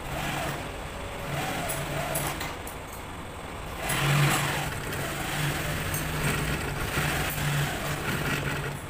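Industrial sewing machine stitching a leather welding glove, its motor humming in short runs that start and stop every second or so, with a few sharp clicks from the machine.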